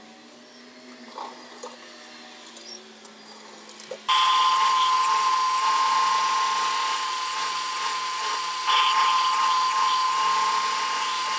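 Faint handling sounds for about four seconds, then a 4 x 36 inch belt sander suddenly comes in, running loud and steady with a high whine as a small block of tupelo wood is pressed against the belt. It gets louder about nine seconds in.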